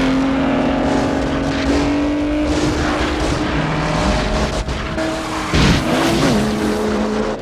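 Car engines running hard during a film car chase, their pitch shifting as they rev. A sudden loud noisy burst comes about five and a half seconds in.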